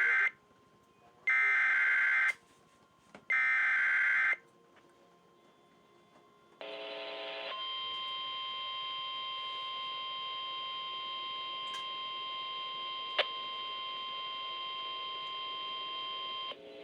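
Emergency Alert System SAME header: three harsh, screeching bursts of digital data tones, each about a second long and about a second apart. After a short low buzz, the NOAA Weather Radio warning alarm sounds as a steady single tone near 1050 Hz for about nine seconds, announcing a tornado warning.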